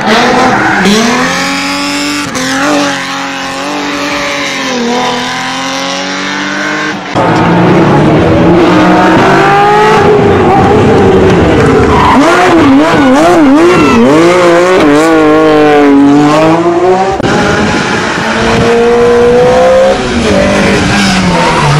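Race car engines at high revs, one car after another, the pitch climbing and dropping with gear changes and throttle lifts. There is a sudden step up in loudness about seven seconds in.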